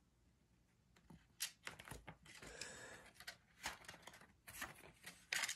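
Faint handling noises: scattered light clicks and taps with some rustling, starting about a second in after near silence.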